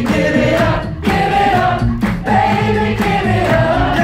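A cappella vocal group singing close harmony live, over a beatboxed beat of about two beats a second.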